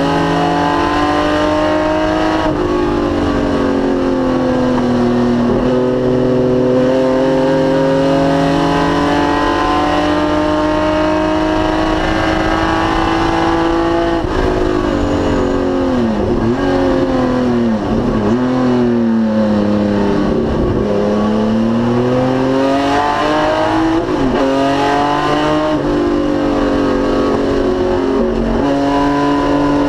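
1973 BMW 3.0 CSL Group 2 race car's straight-six at racing speed, the revs climbing and dropping with each gear change. About halfway through, the revs dip and recover several times in quick succession before the engine pulls up again.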